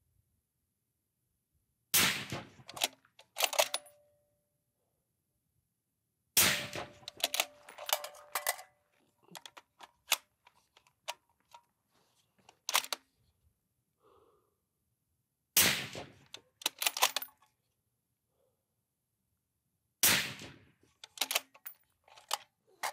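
Suppressed rifle shots, four loud ones and a couple of lighter reports spread several seconds apart, with small metallic clicks and rattles of rifle handling and a magazine change between them.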